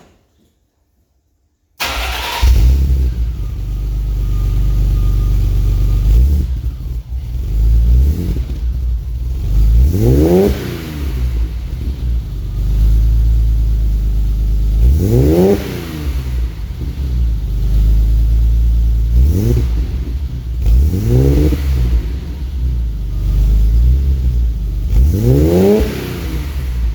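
BMW E30 320i's 2.0-litre inline-six (M20) on its stock exhaust, idling and blipped to higher revs about five times, each rev rising and falling back to idle. The engine sound comes in suddenly about two seconds in.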